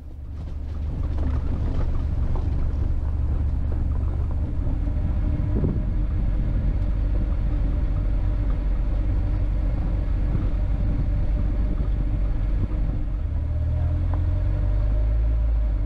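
Vehicle rumbling slowly along a rough gravel road: a steady low engine and tyre rumble with small knocks from stones and bumps.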